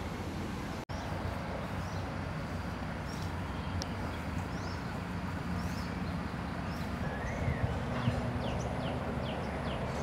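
Outdoor ambience: a low steady rumble, with faint short bird chirps in the second half. There is a brief dropout about a second in.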